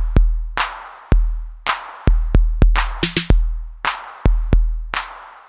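Electronic music with a drum-machine beat: deep booming kick drums and sharp snare hits, a snare hit about every second.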